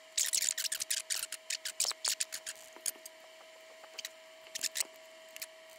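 Soldering iron tip and solder wire working at a pad on a circuit board: a quick run of sharp clicks and crackles for about the first three seconds, then a few scattered clicks. A faint steady tone sits underneath.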